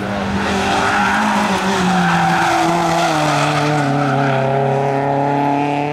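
Rally car engine running hard through a bend, its note falling steadily as the car goes by and away, with tyre noise on the tarmac.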